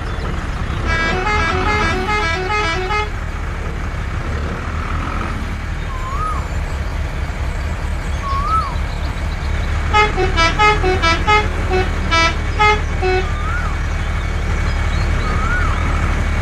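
A vehicle's musical horn tooting a quick tune of short notes twice, about a second in and again about ten seconds in, over a steady low engine rumble. A few short rising-and-falling whistles sound in between.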